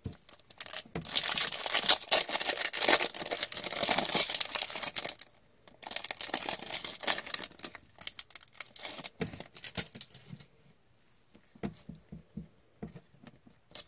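The wrapper of an O-Pee-Chee Platinum hockey card pack being torn open and crinkled, in two dense bursts over the first several seconds. This is followed by lighter, scattered clicks as the cards are slid out and handled.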